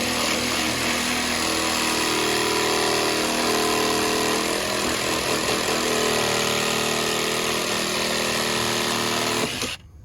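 A motor running steadily and loudly, cutting off suddenly near the end.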